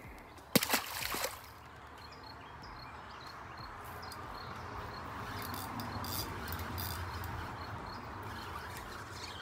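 A few sharp knocks in the first second, then a steady hiss of trickling river water that swells slightly through the middle.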